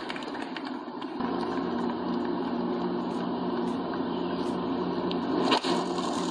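A golf club strikes the ball once on a tee shot, a sharp crack about five and a half seconds in. Under it runs a steady drone with a low hum, like an idling engine.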